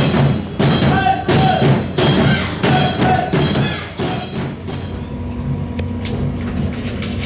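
Rhythmic percussion music, about two beats a second, stops about four and a half seconds in, leaving the steady hum of a train standing at the platform.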